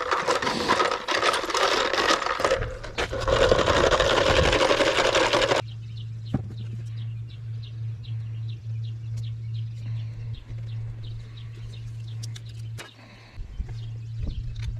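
Nuts and washers stirred by hand in a plastic bucket of vinegar, a dense splashing and metal rattling that cuts off suddenly about five and a half seconds in. After it, a steady low hum with faint, evenly repeated chirps.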